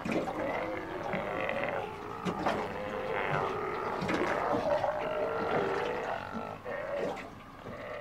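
Steller sea lions calling over one another: a continuous chorus of overlapping calls that eases off near the end.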